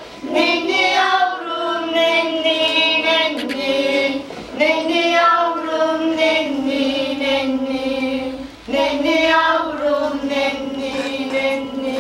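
Slow singing by high voices, held on long notes in three phrases, with brief breaks about four seconds and about eight and a half seconds in.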